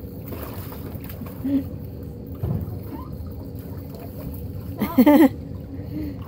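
Water sloshing and splashing in an inflatable paddling pool as a child shifts about in it, with a short vocal cry about five seconds in.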